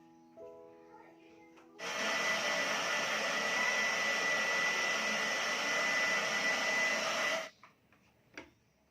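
A small electric appliance with a motor and fan, like a hair dryer, runs with a steady whoosh and a thin high whine. It switches on suddenly about two seconds in and cuts off about five and a half seconds later. Soft piano notes play before it starts.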